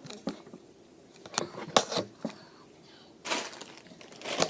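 Plastic slime containers and their wrapping being handled: a few sharp clicks and taps, then a short rustle of packaging about three seconds in.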